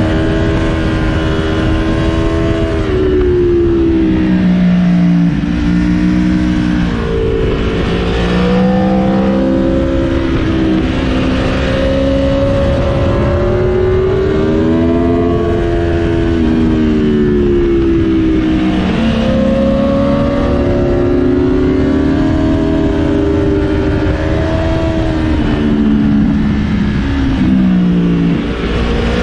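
Aprilia Tuono motorcycle engine pulling hard. Its pitch climbs through each gear and drops at every upshift, several times over, with wind noise underneath.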